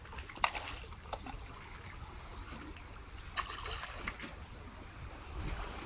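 Water splashing as sharks take floating pieces of fish bait at the surface: a short splash about half a second in and a longer one about three and a half seconds in, over a low steady rumble.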